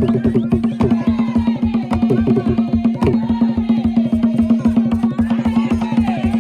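Fast, driving hand-drum rhythm accompanying a Gule Wamkulu dance, with voices rising and falling over the drumming and a steady low drone underneath.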